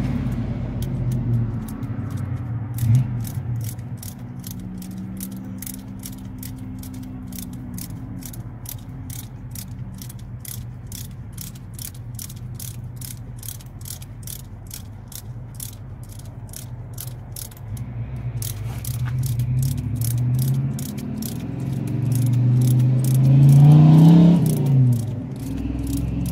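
Ratchet wrench clicking steadily, about three clicks a second, during work on a truck's front axle and brakes. A vehicle engine runs underneath, its pitch rising and then falling near the end.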